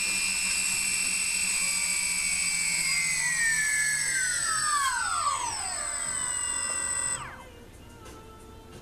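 Drone's electric motors spinning on a bench test with a high, steady whine, then slowing down with a falling pitch from about three seconds in and cutting out about seven seconds in. One of the motors is newly replaced, and one motor seems a little laggy, which the owner hopes is down to calibration.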